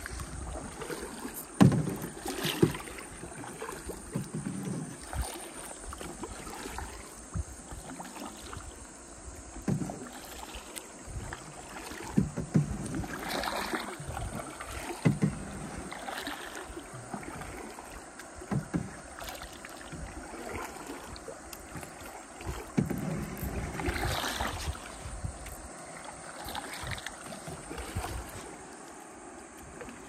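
Kayak paddles dipping and splashing in river water, with strokes at irregular intervals and a few louder splashes.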